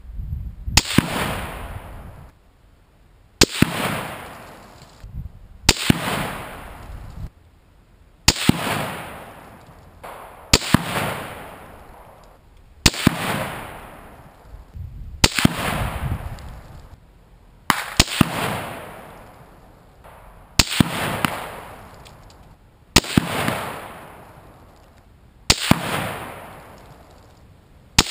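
Ruger Precision Rifle in 6.5 Creedmoor firing a ladder of 147-grain ELD-M handloads: twelve shots, about one every two and a half seconds. Each is a sharp double crack followed by a long fading echo.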